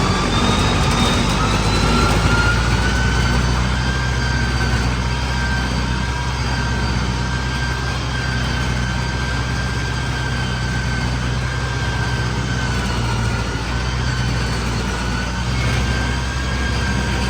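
Rice combine harvester's engine running hard while the machine is bogged in mud, a steady low drone under a high whine that rises over the first few seconds and then holds level.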